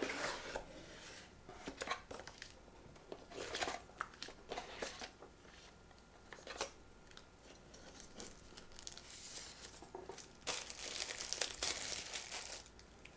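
Cardboard packaging being opened and handled: scattered soft rustles and clicks of box flaps and inserts, then a denser stretch of plastic wrap crinkling from about ten and a half seconds in as the device is unwrapped.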